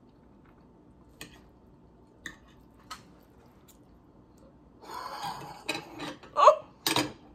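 A person chewing a mouthful of omelet, with faint scattered mouth clicks. About five seconds in comes a louder stretch of breathy noise and short voiced sounds from her mouth, one of them a quick rising-and-falling vocal sound, the loudest near the end.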